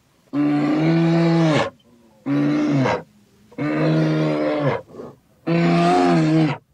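Four long, low, steady bellowing animal calls, each about a second long with short pauses between them.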